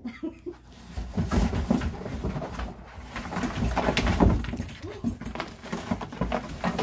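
Cardboard box knocking, scraping and rustling as dogs push into it and move around inside it, with paws scrabbling on the cardboard. The noise comes in dense, irregular bursts with low thumps, building up about a second in.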